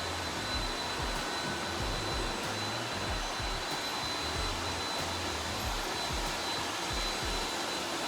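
Robot vacuum cleaner running steadily, a constant rushing noise with a thin high whine.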